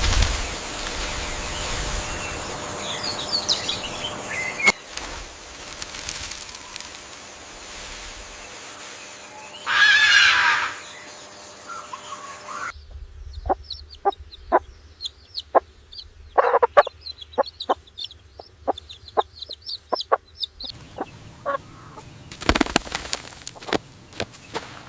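Chickens clucking and calling, with a louder call about ten seconds in and a run of short, quick clucks in the middle; the background noise changes abruptly several times.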